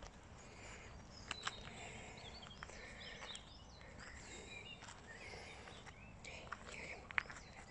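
Small birds chirping with quick rising and falling notes over faint steady outdoor background noise, with a few sharp clicks or crunches, the loudest near the end.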